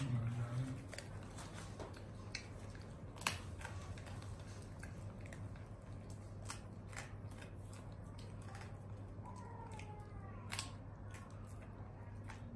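A pet monkey eating dried banana: scattered small clicks and smacks of biting and chewing, over a steady low hum.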